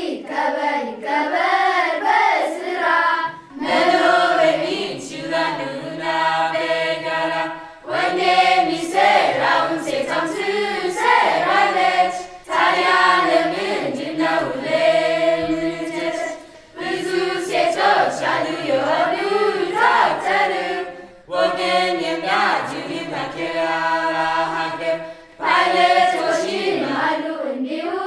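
Children's choir singing together in phrases of about four seconds, with brief breaks between phrases.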